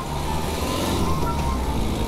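Tesla Model 3 electric car rolling slowly over concrete: a steady low rumble of tyres and road noise with no engine sound, under background music.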